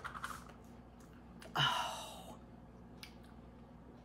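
A short breathy sigh about a second and a half in, fading away over under a second, with a soft knock as it starts. A faint click comes near the end; otherwise quiet room tone.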